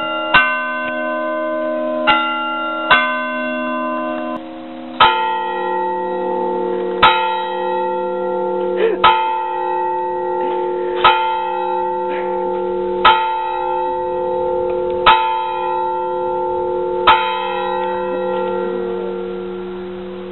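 Church bells tolling: in the first few seconds, strikes come in pairs of higher and lower notes, then from about five seconds in a deeper bell strikes steadily about every two seconds, each stroke left ringing. The ringing fades near the end.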